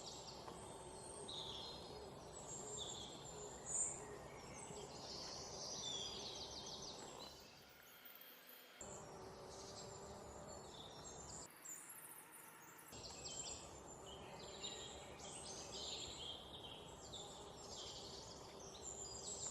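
Birds chirping and insects trilling, many short high calls over a faint steady outdoor background. The sound drops out briefly twice.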